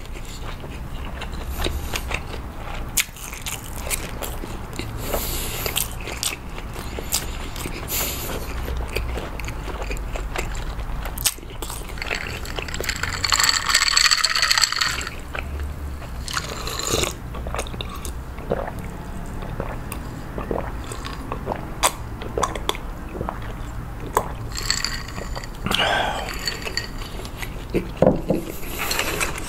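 Close-miked eating: crisp bites into air-fried Vienna sausages and chewing. A few seconds of drinking from a glass about halfway through.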